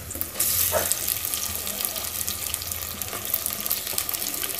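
Raw turmeric-marinated chicken pieces dropped into hot sesame oil and shallots in a clay pot, setting off sizzling. The sizzle starts suddenly about half a second in and carries on as a steady hiss with fine crackles.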